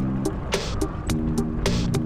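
Background music with a steady beat over held, plucked-sounding notes.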